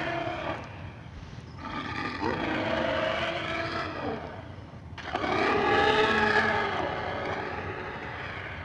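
Allosaurus roar sound effects: long, growling calls with a wavering pitch. The tail of one call ends about half a second in, then two more calls of about three seconds each follow, the last the loudest.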